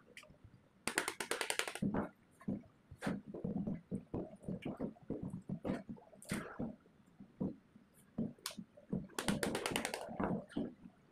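Hands lacing tape around the end windings of a rewound electric motor stator: two bursts of fast crackling, as of tape being pulled and ripped, about a second in and again near the end. Between them come scattered rustles and soft knocks of tape and paper being handled.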